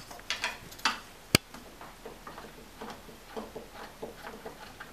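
Light clicks and knocks of a wooden steady rest being handled and set in place on a lathe bed, with one sharp click a little over a second in.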